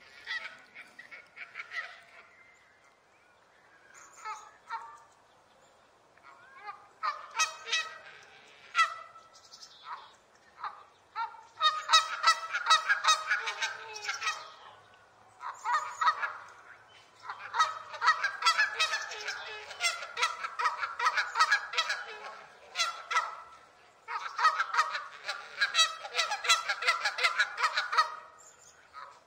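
Canada geese honking: a few scattered honks at first, then, from about twelve seconds in, long runs of rapid honks broken by short pauses.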